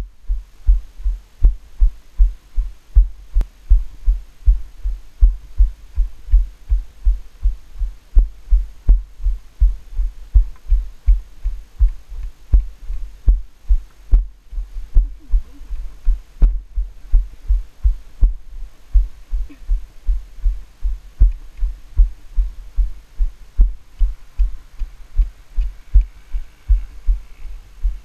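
Steady rhythm of low, muffled thuds, about three a second, from a horse moving at a steady gait on arena sand. The thuds are the jolts of each footfall picked up by a helmet-mounted GoPro HERO 3, with faint clicks among them.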